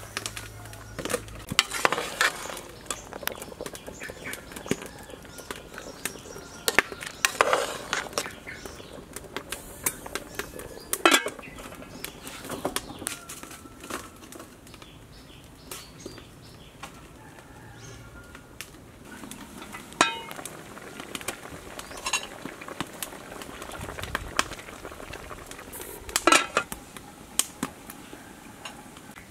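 Scattered clinks and knocks of a large aluminium cooking pot and its metal lid as fish is tipped in and the lid is set on, a few strikes ringing briefly.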